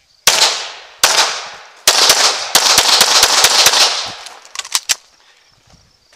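CZ Tactical Sport Orange pistol firing: three shots about three-quarters of a second apart, then a fast string of shots, then a few fainter cracks near the end.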